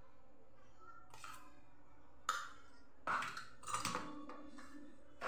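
A steel spoon clinking and knocking against a steel bowl a few times while scooping soft ghee: one sharp knock about two seconds in, a cluster of knocks around three to four seconds, and another right at the end.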